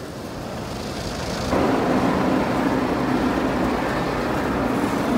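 Automatic car wash working over the car, heard from inside the cabin: a steady rushing wash noise that builds and then jumps louder about a second and a half in.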